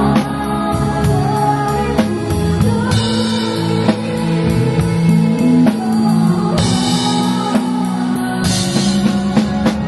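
Live band playing a song, with a drum kit keeping the beat, cymbal crashes washing over it twice, guitar and bass, and a vocal line.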